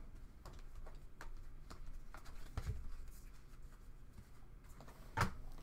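Soccer trading cards being flipped through by hand: soft scattered clicks and rustles of card stock sliding over card stock, with one sharper click near the end.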